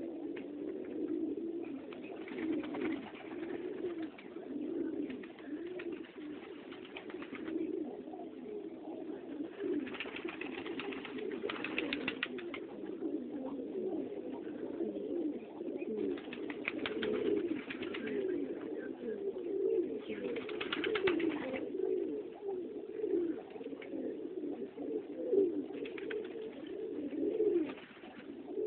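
Many domestic pigeons cooing together, a continuous overlapping low cooing, with several rustling bursts of a second or two each over the top.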